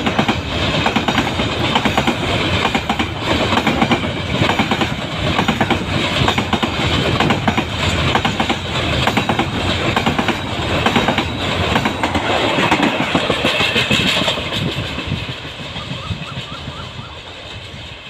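Container flat wagons of a long freight train rolling past close by, their wheels clattering over the rail joints in a fast, uneven rhythm. The clatter fades away near the end as the last wagons go by.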